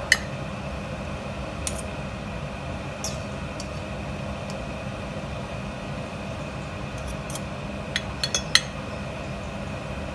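A metal fork clinking against a ceramic plate and a stainless steel mixing bowl while dishing out shredded cabbage salad: scattered sharp clinks, the sharpest right at the start and a quick cluster of several near the end, over a steady low hum.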